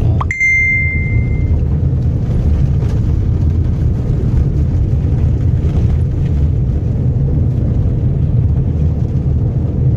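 Steady low rumble of a moving road vehicle heard from inside its cabin, engine and tyre noise while driving. A short high beep sounds about a third of a second in.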